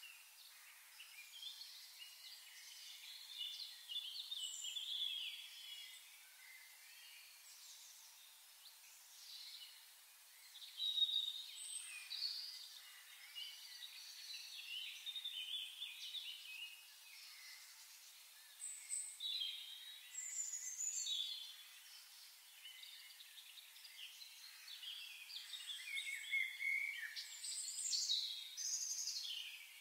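A chorus of songbirds: many short chirps, twitters and trills overlapping, some nearer and louder than others.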